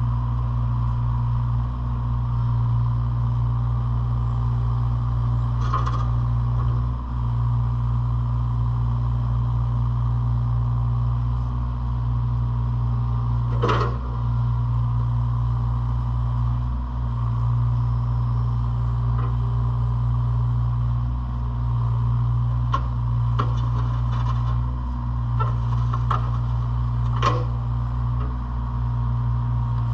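Hitachi ZX33U-5A mini excavator's diesel engine running steadily, with a few short metallic knocks and clanks from the machine.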